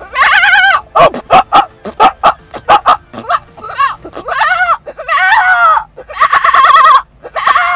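A man imitating animal calls with his voice: one pitched call, then a fast run of short sharp yaps, about four or five a second, then four long quavering cries.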